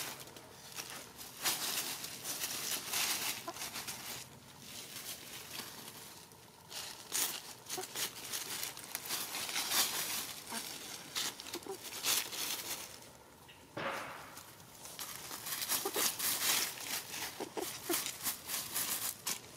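Hens scratching and pecking through dry fallen leaves, a crisp crackling rustle that comes in irregular bursts.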